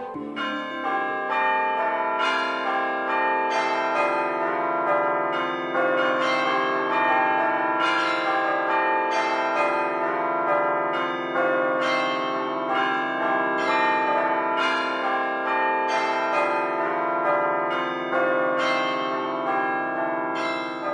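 Church bells ringing, a steady run of overlapping strokes about twice a second, each ringing on with a long tail.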